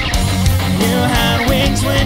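Rock band music: electric guitars over bass and drums, with a melodic line bending up and down in pitch.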